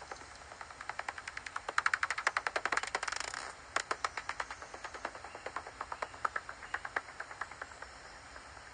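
Pipistrelle bat's echolocation calls made audible through a bat detector: a train of dry clicks at about ten a second. About three seconds in the clicks quicken into a rapid buzz that breaks off suddenly, the feeding buzz of a bat closing on an insect, and then the steady clicking resumes.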